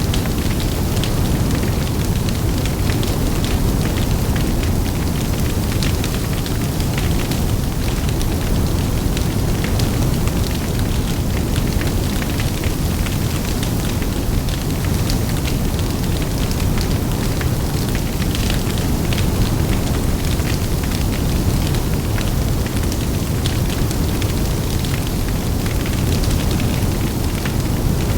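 A large fire burning in wind: a steady low rumble scattered with frequent sharp crackles and pops.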